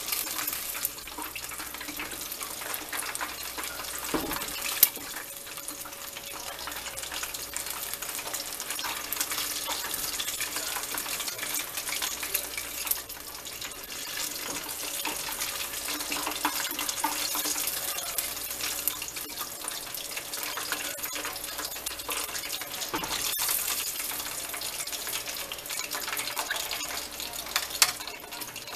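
Chicken wings deep-frying in a pot of hot oil: a steady hiss throughout, with a few sharp clicks of the metal fork against the pot as pieces are lifted out.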